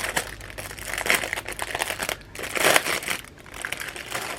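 Crinkly packaging rustling and crackling as it is handled and opened, with louder surges about a second in and near the middle.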